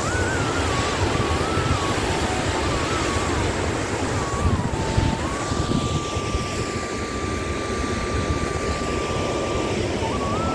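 Steady rushing roar of water pouring over a dam spillway, loud enough to swamp the microphone. A thin whistle-like tone wanders in pitch over it, then holds steady for a few seconds after the midpoint.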